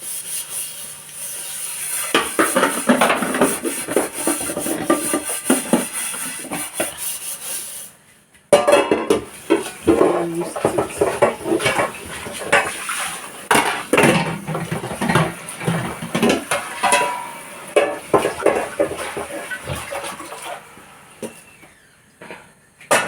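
Pots, pans and cooking utensils clattering and knocking irregularly, with a brief break about eight seconds in.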